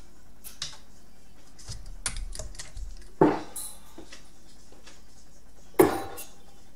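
Steel-tip darts being pulled out of a bristle dartboard with a few light clicks, then two darts thudding into a dartboard about two and a half seconds apart.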